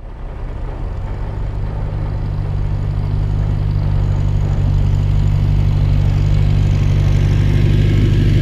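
Tractor engine and pull-type combine running steadily, a low drone that grows slowly louder.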